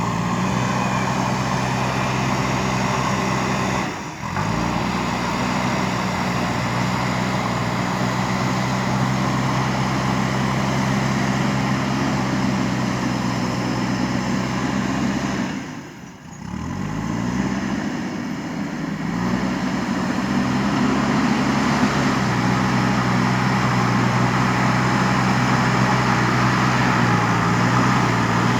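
JCB 3DX Super backhoe loader's diesel engine running steadily. It drops out briefly twice and climbs in pitch as it revs back up after the second break.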